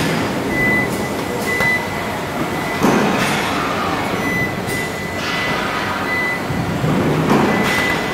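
Factory noise in a robotic body-frame welding cell: steady machinery running, with a high electronic beep that repeats every second or so, and two louder rushes of noise about three and seven and a half seconds in.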